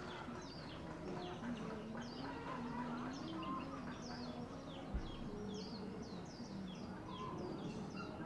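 Birds chirping with many short, high, falling chirps, several a second, over low clucking of chickens. A single dull thump comes about five seconds in.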